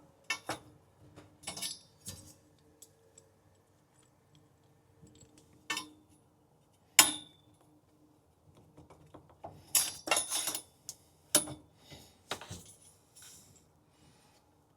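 Irregular metallic clicks and clinks of a small pipe cutter being set on and worked around a soldered copper drain pipe, with one sharp click about seven seconds in and a quick run of clinks around ten seconds.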